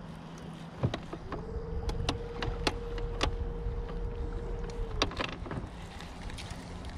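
Electric trolling motor whining: it spins up just over a second in, holds a steady hum for nearly four seconds, then winds down. Several sharp clicks sound over it.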